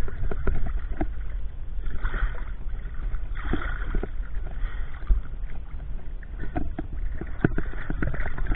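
Muffled water noise around a camera in the water: a steady low rumble with scattered knocks and clicks, and a few surges of sloshing.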